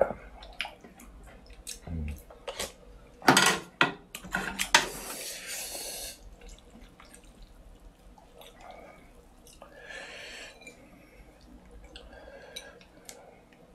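Chopsticks clicking and knocking against ceramic bowls as a bowl of ramen is stirred, with broth sloshing and dripping when noodles and seaweed are lifted out. The loudest knocks and splashing come about three to six seconds in.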